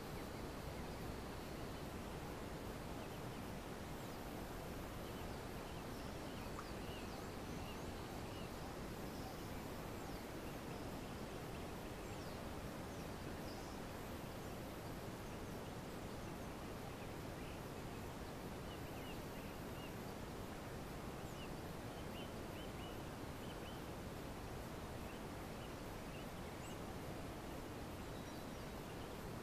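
Quiet outdoor pond ambience: a steady low background noise with faint small birds chirping in short scattered bursts.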